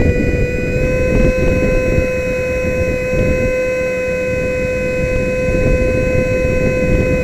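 64 mm electric ducted fan on a brushless motor, heard from a camera on board the RC jet, whining at a steady high pitch at cruise throttle, edging up slightly right at the start. Rushing wind noise lies underneath the whine.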